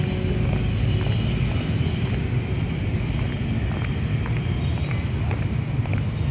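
Steady outdoor background noise, mostly a low rumble, with a few faint ticks scattered through it.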